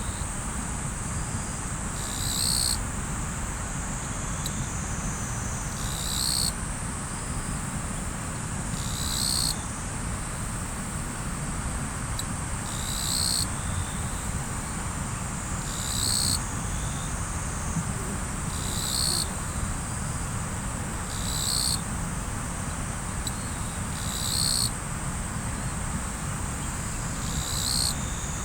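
Riverside ambience: a steady rush of flowing river water under a constant high-pitched drone of insects. A short high call cuts through about every three seconds.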